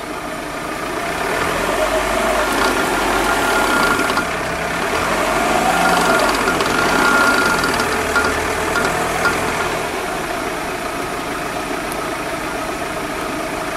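Toyota Harrier SXU10's engine running with the jacked-up wheel spinning in gear. The sound swells a little midway, and a faint thin whine comes and goes. The spinning wheel is out of balance.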